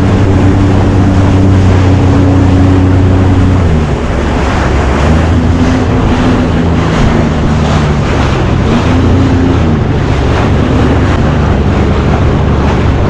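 Jet ski engine running at speed, a steady drone that eases off about four seconds in and picks back up, with wind buffeting the microphone and the hull slapping through chop.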